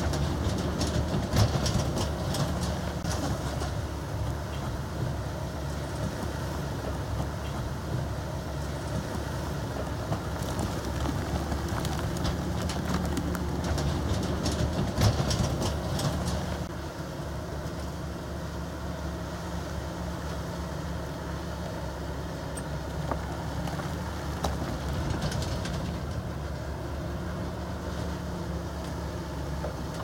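Bulldozer's diesel engine running steadily under work, with bursts of metallic clatter from the tracks and steel in the first few seconds and again from about ten to sixteen seconds in; after that it settles to a steadier, slightly quieter drone.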